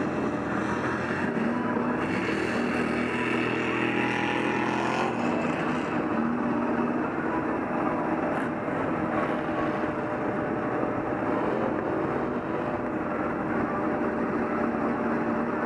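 Sherp ATV's diesel engine and drivetrain running steadily under load as it crawls across deep mud, heard from on board. The engine pitch shifts in the first few seconds, then settles into an even drone.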